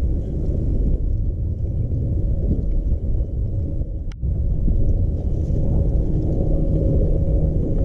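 Low, steady rumble of wind buffeting the microphone on a bass boat, with a faint steady hum underneath. A brief dip and a single click come about four seconds in.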